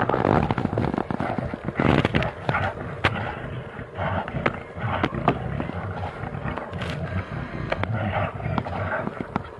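Two brown bears growling and grunting as they wrestle, with rough rustling and many sharp clicks and knocks throughout.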